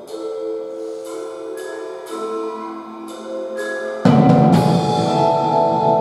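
Live percussion ensemble: single ringing, bell-like mallet notes struck one at a time. About four seconds in, a sudden loud crash from the drum kit and cymbals comes in, and a held chord rings on after it.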